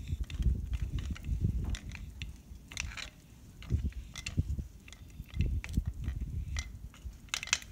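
Hand-lever grease gun pumping grease into a tiller's dog clutch housing: a run of irregular clicks from the lever with wet squelches of grease being forced in.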